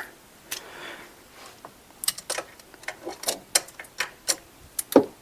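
Hand ratchet and socket clicking in short, irregular strokes, about three a second from two seconds in, with one louder click near the end, as a socket stuck on a freshly tightened fitting is worked loose.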